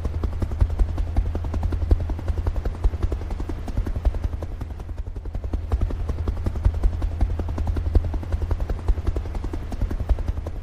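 Helicopter rotor beating steadily in a fast, even chop.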